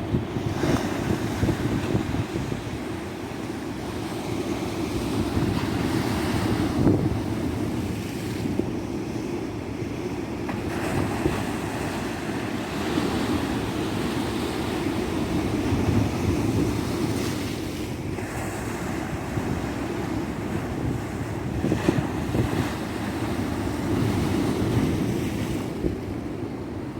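Ocean surf breaking and washing onto a tropical beach: a continuous rushing that swells and eases every few seconds.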